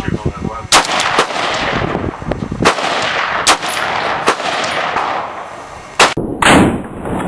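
Rifle shots from a Romanian PSL firing 7.62x54R, about six or seven sharp cracks at uneven gaps of a second or so, each with a short echoing tail.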